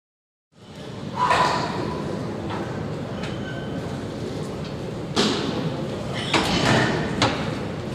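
Ambience of a large sports hall during a weightlifting competition: a background hum of voices broken by several sharp knocks and thuds.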